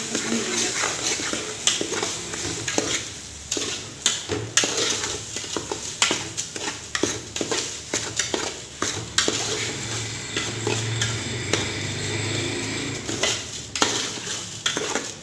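A metal spoon stirring and scraping sugar into semolina roasted in ghee in a steel pot, with many irregular clicks and scrapes against the pot's sides and bottom. A light sizzle of the hot ghee runs underneath.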